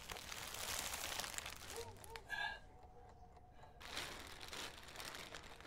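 Faint crinkling and rustling of clear plastic sheeting wrapped around a body as it is handled, dropping away for about a second a little past the middle.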